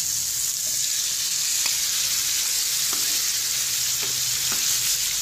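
Hot oil sizzling steadily in a frying pan as yogurt-marinated chicken is scraped in from a bowl and stirred over frying onion, tomato and green chillies, with a few light taps of the spoon.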